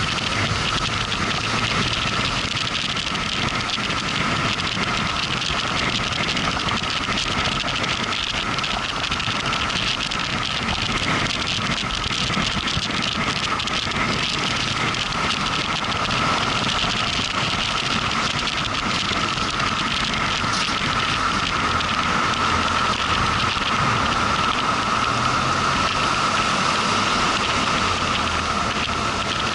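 Motorcycle riding at a steady pace: engine running under a continuous rush of wind and road noise.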